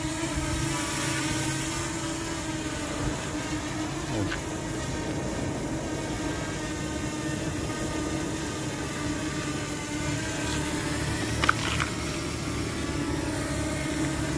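DJI Mini 2 drone's propellers buzzing steadily with a constant pitch, mixed with wind noise. A sharp click about eleven and a half seconds in.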